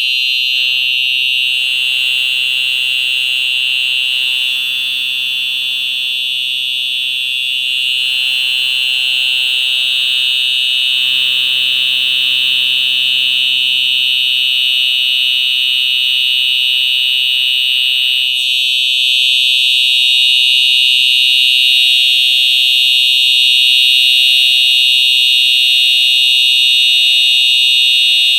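Simplex TrueAlert 4903-9425 electronic horn strobe sounding its horn: a loud, continuous, high-pitched electronic alarm tone with no breaks. It gets a little louder about two-thirds of the way through.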